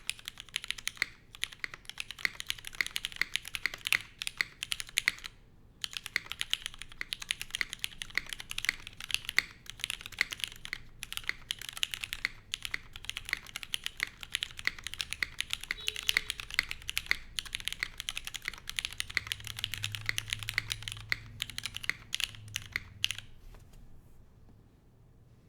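Typing on a Fox Lab F80 SE mechanical keyboard with lubed and filmed Cherry MX Hyperglide Black linear switches in an aluminum plate, under GMK keycaps: a fast, steady run of keystrokes. It breaks briefly about five seconds in and stops a couple of seconds before the end.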